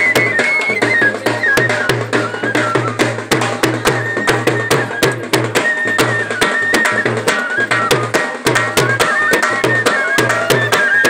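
Bhalessi folk dance music: a steady drum beat of about three strokes a second with sharp clicking percussion under a high, stepping melody line.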